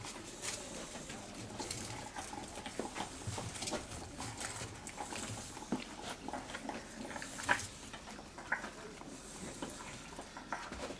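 Green tree monitor eating a mouse: irregular soft clicks, crunches and scratches as it works the prey down its throat, with one sharper click about seven and a half seconds in.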